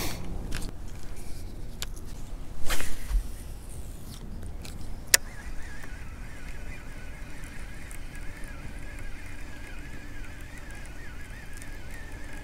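A fishing reel cranking in line after a cast. A brief rush of noise comes about three seconds in, then a sharp click a couple of seconds later, and from there on the reel turns with a steady, wavering whine.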